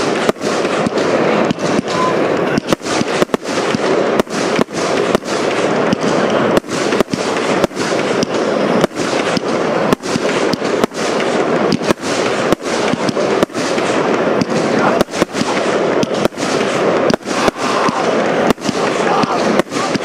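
Firework batteries firing aerial shots in a rapid, unbroken series, a stream of launches and bursts overlapping one another.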